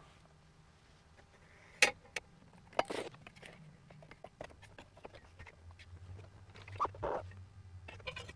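Plastic interior trim of a Jeep Cherokee XJ being handled and slid into place: scattered sharp clicks and knocks, the loudest about two seconds in, with more around three seconds and near the end.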